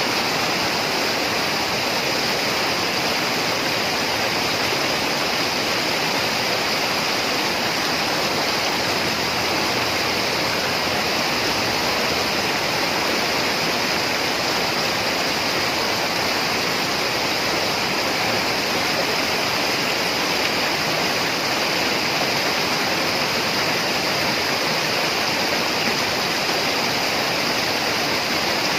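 Mountain stream rushing over boulders in white-water rapids, a steady, even rush of water.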